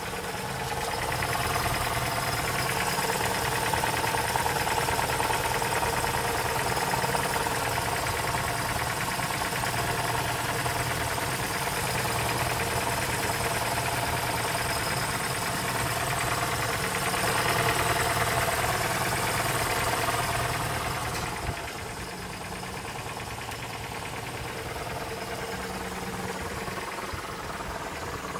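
Car engine idling with a knocking and rattling from the manual gearbox. About three-quarters of the way through the sound drops noticeably, as the gearbox noises do with the clutch pedal pressed.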